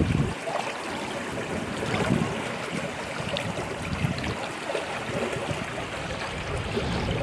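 Riverside outdoor noise: a steady wash of water with wind gusting on the microphone in low rumbles every couple of seconds.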